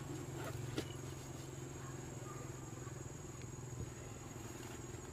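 Faint outdoor background: a steady low hum, like distant engine noise, with a thin high whine over it and a few light clicks in the first second.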